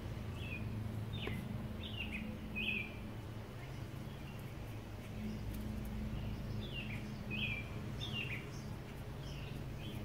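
A songbird calling in two short runs of quick chirps that slur downward, over a steady low hum.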